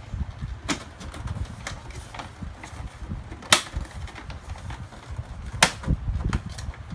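Plastic figure parts being handled and forced together: irregular clicks and knocks with rustling handling noise, two sharp clicks standing out, one in the middle and one about two seconds later.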